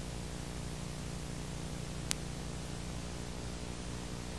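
Steady tape hiss with a low mains hum from a VHS tape's playback, and one short click about two seconds in.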